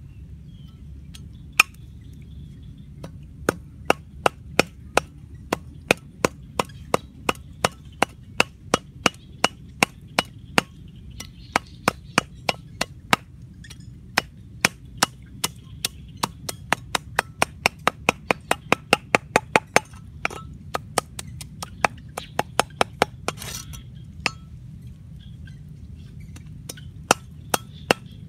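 Meat cleaver chopping fish on a round wooden chopping block: a long run of sharp chops, about two to three a second, with a few short pauses.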